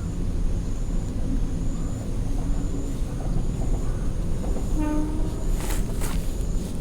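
Steady low rumble, with a faint high tone pulsing about once a second. About five seconds in there is a brief pitched call, followed by two sharp clicks.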